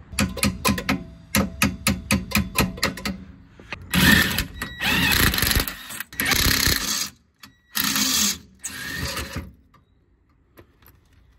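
Cordless impact wrench undoing the rear shock absorber's lower bolt: a quick run of sharp hammering impacts, then about three seconds of continuous running as the bolt spins out, then two shorter bursts before it stops.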